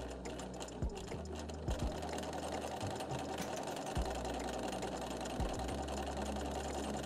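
Bernina 335 sewing machine running steadily as it stitches free-motion embroidery.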